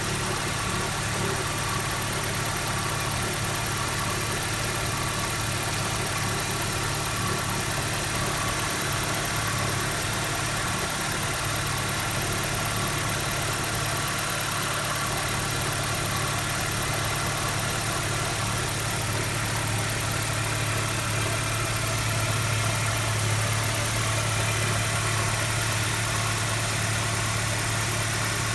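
BMW E90 320i four-cylinder petrol engine idling steadily while still cold, with assorted mechanical noise. Under it is a faint, recurring rubbing noise, a 'guon, guon' or 'gurun, gurun', which the owner takes for an abnormal noise.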